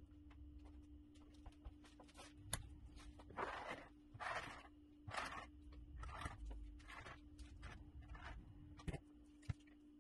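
Notched trowel scraping across a countertop as it spreads epoxy, in a run of short strokes about one a second, loudest around the middle, with a couple of light clicks. A faint steady hum runs underneath.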